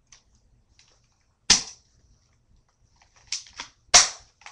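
Spring-action airsoft Colt 1911 pistol fired empty, with no magazine in: a sharp snap about a second and a half in, then two lighter clicks as the slide is pulled back to recock, then a second snap about four seconds in.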